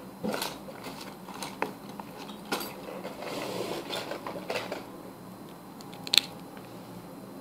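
Clicks and rustles of felt-tip markers being handled, with one sharp click about six seconds in.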